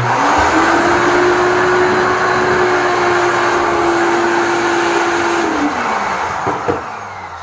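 Ridgid wet/dry shop vacuum switched on abruptly and running with a steady hum, its hose sucking at a clogged toilet bowl. About five and a half seconds in it is switched off and the motor winds down.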